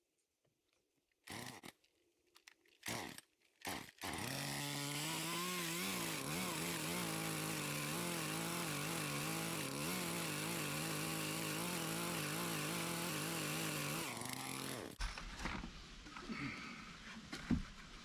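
Chainsaw: three short bursts, then about four seconds in it runs at high speed for roughly eleven seconds, its pitch wavering slightly as it cuts through a board, and stops suddenly.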